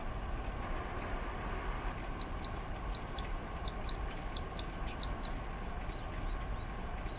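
Zitting cisticola calling: ten short, sharp, high notes in quick pairs, starting about two seconds in, over a steady hiss of rain.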